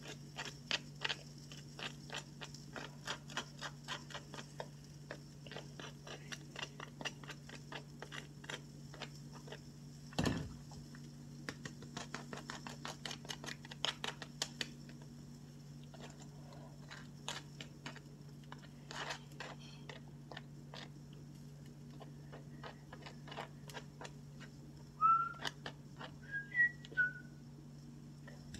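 A fork scraping butter over a toasted bagel in quick repeated strokes, over a steady low hum. There is a thump about ten seconds in, and a few short whistled notes near the end.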